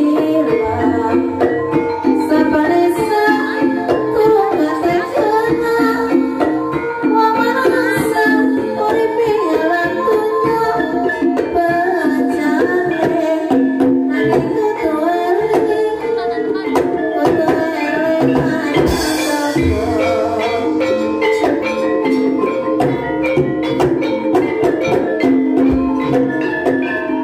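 Live Banyumasan gending music for an ebeg dance: hand drums beating under a busy keyboard and gamelan-style melody, with singing.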